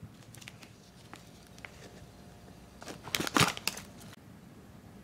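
Plastic wrapping crinkling in a short loud burst about three seconds in as a bagged monaka wafer sweet is picked up and handled, after a few light ticks.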